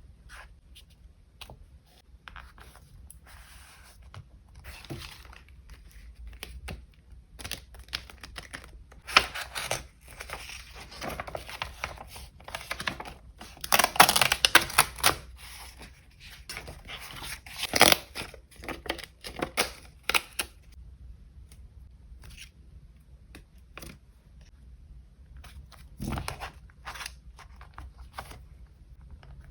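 Paper craft materials being handled: rustling and tearing of paper or packaging, loudest about halfway through, then dying down to occasional light handling with one soft knock.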